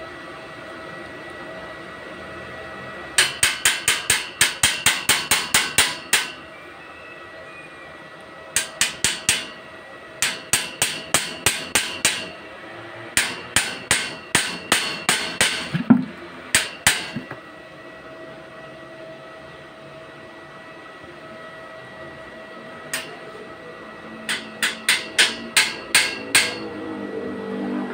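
Hammer tapping on a steel square-tube frame in quick runs of about four metallic strikes a second, several runs separated by pauses. One heavier knock comes about two-thirds of the way through the taps.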